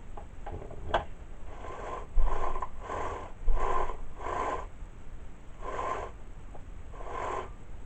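About seven short rasping strokes of metal on metal from hand work on a Poulan Wild Thing chainsaw's new chain and bar, each lasting about half a second, with a sharp click about a second in.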